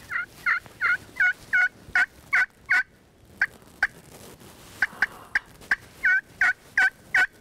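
Turkey call sounding series of hen yelps, short rising-and-falling notes at about three a second. A first run is followed by a few scattered yelps, then a second run near the end, to coax a gobbler across the field.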